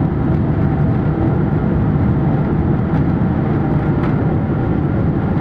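Cabin noise of a Boeing 777-300ER rolling along the ground after landing: a loud, steady rumble, with a few faint knocks.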